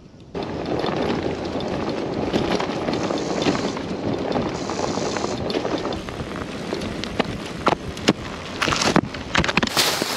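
Fiido T1 Pro e-bike's fat tyres rolling over a rough dirt track, heard from a camera mounted on the bike, with knocks and rattles over bumps. Near the end, feet and wheels crunch through dry leaves.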